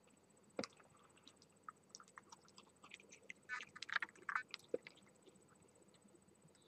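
Red fox chewing food, an irregular run of soft crunches and clicks that comes thickest about halfway through.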